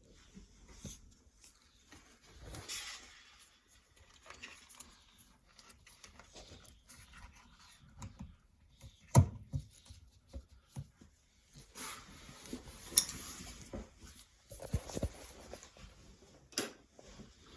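Scattered handling noises: irregular clicks, knocks and rustling of parts and tools, with the sharpest knocks about nine and thirteen seconds in.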